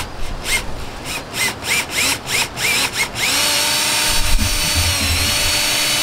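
Cordless drill with a 1 7/8-inch hole saw cutting into the wall of a boat's center console. The trigger is pulsed in short spin-ups about three times a second to start the cut, then held from about three seconds in for a steady run.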